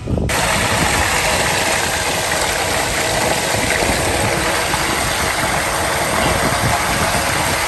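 Pumped liquid gushing from a hose outlet into a plastic spray tank through a fine filter sock: a steady rushing splash that starts abruptly just after the beginning.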